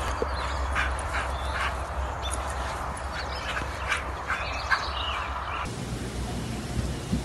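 A run of short, high animal calls, a dozen or so spread over several seconds, with wind rumbling on the microphone. After about five and a half seconds the calls and wind stop at once, leaving quiet room sound.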